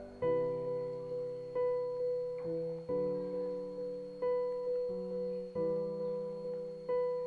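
Calm solo piano music: slow notes and chords, a new one struck about every second and a half, each fading away before the next.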